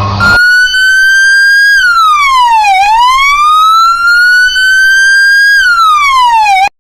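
Emergency vehicle siren wailing: one clean tone that falls slowly, climbs back up over about three seconds and falls again, then cuts off suddenly near the end.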